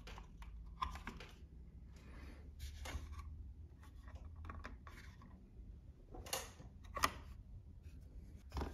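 Light plastic clicks, scrapes and rustles of a faux wood blind's headrail being worked loose from its mounting brackets by hand. The sharpest click comes about seven seconds in.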